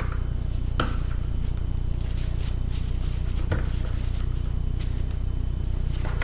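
Scattered light clicks and taps of a screwdriver working the screws of a laptop's case, a few sharp ones among fainter ticks, over a steady low hum.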